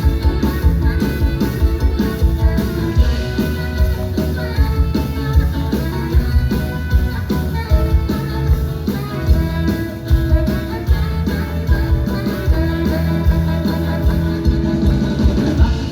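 Live band playing an instrumental passage with a steady rock-and-roll beat on drums and bass, with guitar over it.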